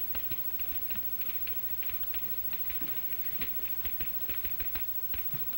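Faint crackle of an old film soundtrack: scattered irregular clicks and pops over a steady hiss, with no dialogue.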